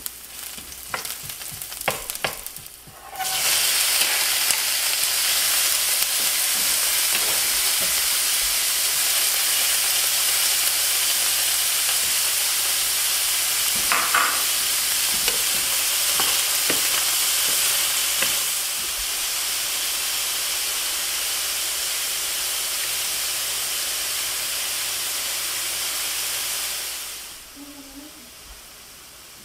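A frying pan with garlic and onion sizzling softly under a few wooden-spoon knocks, then about three seconds in a sudden loud sizzle as diced venison heart and tongue hit the hot oil. The meat sizzles steadily as it is stirred, with an occasional spoon knock, eases a little about two-thirds through and drops away near the end.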